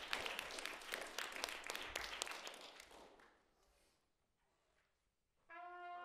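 Applause fading out over the first three seconds, a brief hush, then a trumpet ensemble enters about five and a half seconds in on a held chord.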